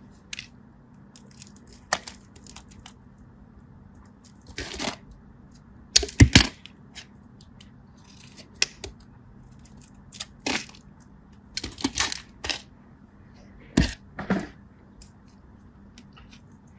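Irregular sharp cracks, snaps and clicks of crunchy material being broken and handled by hand, about a dozen separate events, the loudest around six seconds in.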